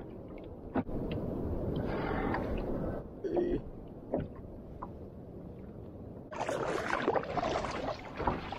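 Water lapping against a fishing kayak's hull, with small knocks against the boat. From about six seconds in, louder splashing and rushing water as the kayak is paddled.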